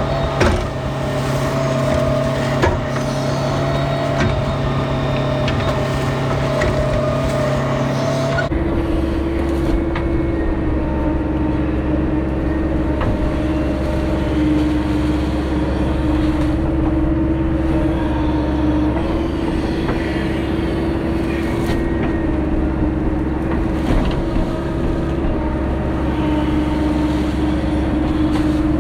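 Caterpillar backhoe loader's diesel engine running steadily while digging, with a few brief knocks. About eight seconds in, the engine note shifts abruptly to a lower, steadier drone.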